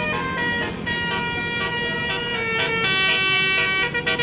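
Bus basuri 'telolet' multi-tone musical horn playing a tune: a run of held horn notes that step from one pitch to another, each lasting from a fraction of a second to about a second.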